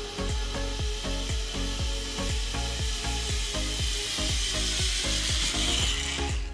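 Zipline trolley running along the steel cable: a rising whirring hiss that grows louder as the rider comes closer, then stops suddenly near the end. Background music with a steady beat plays underneath.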